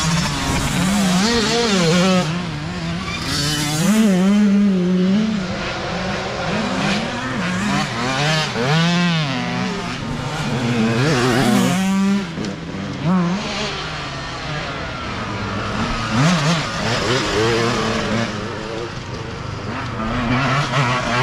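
Youth dirt bike engines racing past one after another, their pitch rising and falling over and over as the riders rev up and shift.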